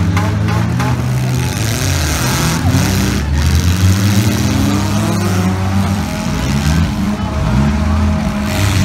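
Several demolition derby cars' engines revving up and down at once as the cars ram each other, with a couple of sharp knocks from the collisions about three seconds in.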